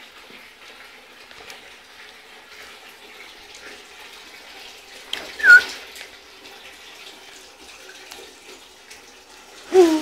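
Puppies playing and scuffling on a stone floor over a steady background hiss, with one puppy giving a short high-pitched yelp about halfway through and another short cry near the end.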